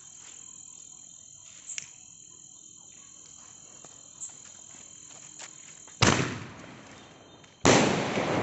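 A small aerial shot firework: a faint high hiss while the fuse burns, then two sharp bangs about a second and a half apart, about six and seven and a half seconds in. The second bang bursts into a spray of crackling stars.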